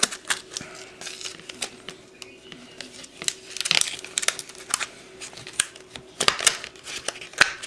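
Clear plastic lure packaging handled and pulled open by hand: irregular crinkling and sharp plastic clicks and crackles.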